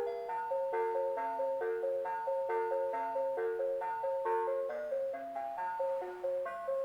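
The Christmas Fantasy Wonderland Skaters Pond's built-in tune player plays a Christmas song in simple bell-like tones. A melody runs over a lower bass line, and each note sounds sharply and then fades.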